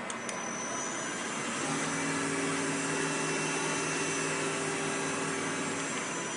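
Yang Eagle SMV 600 CNC vertical machining center running with a steady mechanical hiss and a high thin whine that glides up to pitch just after two short clicks at the start. A lower steady hum joins about two seconds in and stops near the end.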